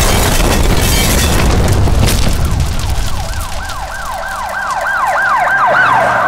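An explosion: a sudden loud blast at the start trailing into a heavy rumble and noisy debris. From about three seconds in, an emergency-vehicle siren joins, repeating quick falling sweeps about three times a second.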